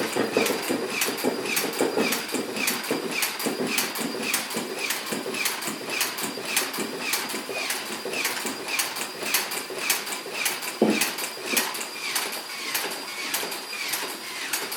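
Small mechanism ticking steadily, about three sharp clicks a second, each with a short chirp, over a faint steady high whine.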